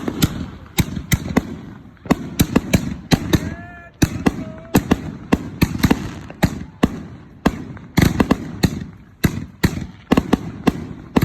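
Firework mortar shells and firecrackers bursting: clusters of sharp bangs, several a second, each trailing off in a low rumble.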